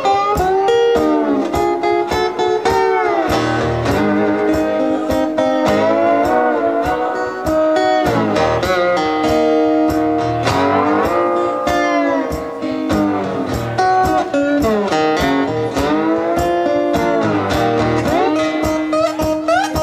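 Acoustic slide guitar playing a blues instrumental passage, the notes gliding up and down over a steady picked rhythm.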